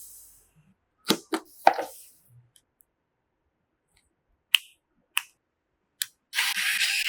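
Sharp clicks and snaps of PC parts being handled and fitted during assembly: a quick cluster of three, then three single clicks spaced apart, followed near the end by about a second of rasping noise.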